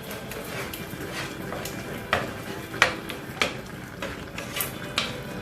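A utensil stirring a cream sauce in a pan, clinking and scraping against the pan several times at uneven intervals.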